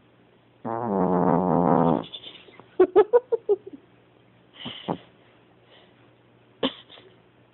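A sleeping pet snoring: one long snore breath about a second in, then a quick run of short sharp clicks and a couple of smaller sounds later on.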